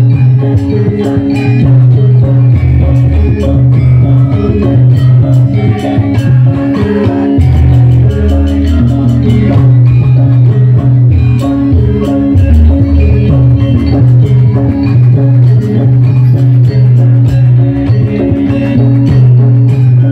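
Live Javanese gamelan music played for a lengger masked dance: rapid struck notes on bronze gong-kettles and drums over a strong, steady low tone.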